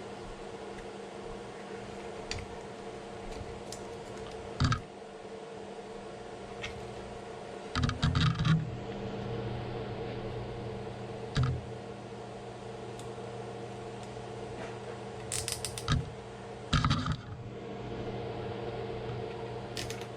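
Small tools and hardware being handled at a workbench: scattered sharp clicks and short bursts of clatter, loudest about 8 s in and again around 16–17 s, over a steady low hum.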